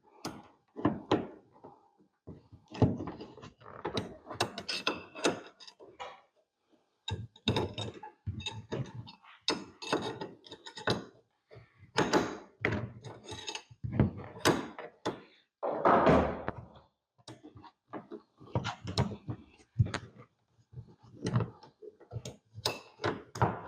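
Irregular knocks, clicks and taps of hand-tool work on a car door's window crank handle: a clip-removal tool being worked behind the handle to push off its horseshoe-shaped retaining clip.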